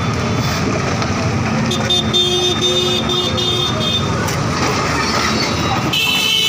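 Street traffic of motorcycles and auto-rickshaws with engines running. About two seconds in, a vehicle horn honks in a quick string of short toots, and a higher-pitched horn sounds briefly near the end.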